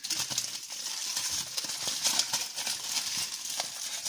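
Aluminium foil crinkling and crackling as hands unwrap it from a freshly baked cake, a dense run of small crackles.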